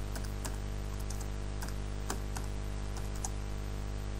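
Typing on a computer keyboard: about ten irregularly spaced key clicks, over a steady low electrical hum.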